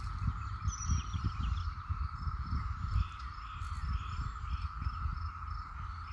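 Cicada chorus, a steady unbroken drone, with faint bird calls over it and gusty wind rumble on the microphone.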